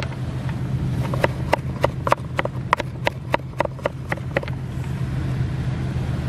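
Kitchen knife chopping ginger finely on a cutting board: quick, even strokes about three a second that stop about four and a half seconds in, over a steady low hum.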